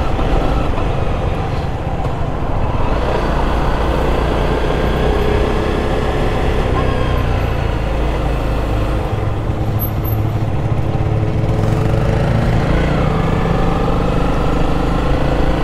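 Honda CRF300's single-cylinder engine running under way at town speed, mixed with a heavy rush of riding wind. Its note rises and falls as the rider works the throttle and shifts.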